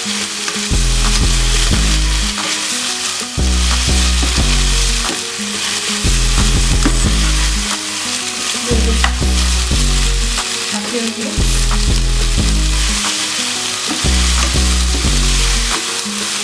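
Beef and vegetable stir-fry sizzling in oil in a pan while being stirred, with a steady hiss throughout.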